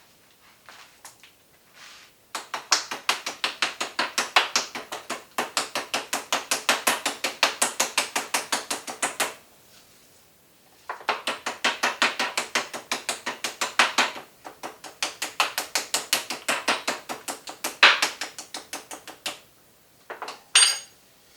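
Handheld meat tenderizer worked rapidly over a raw T-bone steak, making fast mechanical clicks about six a second. The clicks come in three long runs, with a short pause between each.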